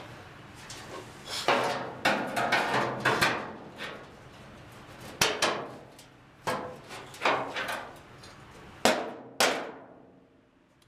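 Steel one-piece floor pan being knocked into position in a 1967 Ford Mustang body: a run of irregular metal bangs, each ringing briefly. A cluster of hits in the first few seconds, then single hits about a second apart, the two loudest near the end.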